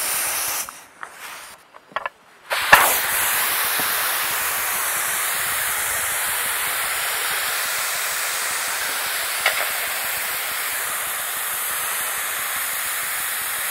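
A few short knocks as the pressure cooker is handled, then about three seconds in its valve opens with a sudden burst and releases steam in a steady hiss, venting the pressure so the lid can be opened.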